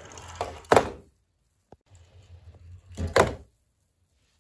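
Die-cast toy fire truck rolling down a wooden plank ramp with a low rumble, broken by two loud thunks, one under a second in and another about three seconds in.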